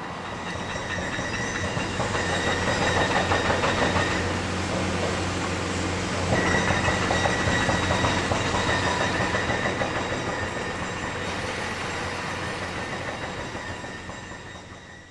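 A train passing, its wheels clattering rapidly over the rails. It builds over the first few seconds, stays loud through the middle and fades away near the end.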